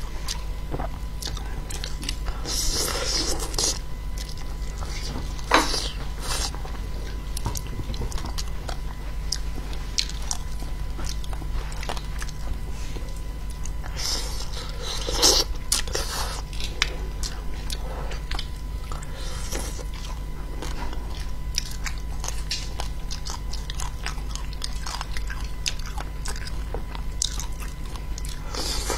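Close-miked biting and chewing of spicy braised fish, with many small clicks and a few louder bites about three seconds in, near six seconds and around fifteen seconds.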